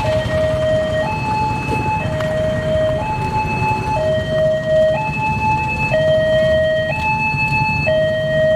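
Railway level-crossing warning alarm sounding a two-tone signal that alternates between a low and a high tone, each held about a second, over the low rumble of road traffic. It warns that a train is approaching and the barriers are closing.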